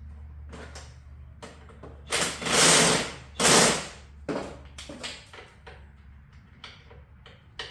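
Impact wrench run in two loud bursts, then a string of lighter tool clicks and knocks, while loosening bolts on a Harley-Davidson Ironhead engine during teardown; the bolts are rounding off.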